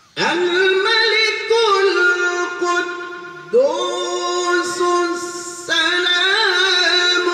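Solo male qari chanting Quranic recitation (tilawah) into a microphone, in long held notes with wavering melodic ornaments. The voice starts suddenly at the beginning, and new phrases begin about three and a half seconds in and again near six seconds.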